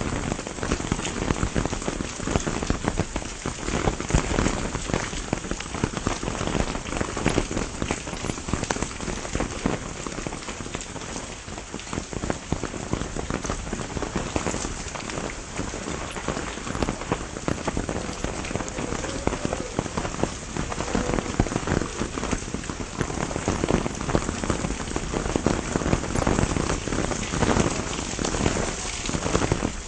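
Heavy rain falling steadily, dense pattering of drops on leaves and surfaces.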